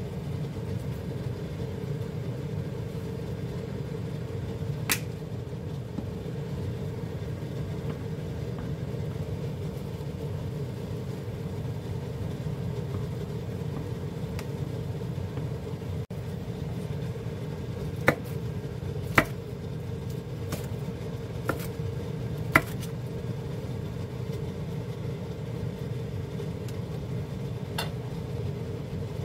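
A steady low rumbling hum under a pot of stew boiling on an electric ceramic cooktop. There is one sharp click about five seconds in, and a handful more between about eighteen and twenty-three seconds in, from the pot being stirred and tended.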